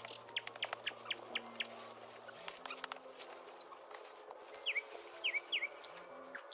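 Small birds chirping: a quick run of short high chirps, then three hooked, sweeping chirps about five seconds in, over a faint low steady hum that shifts pitch twice.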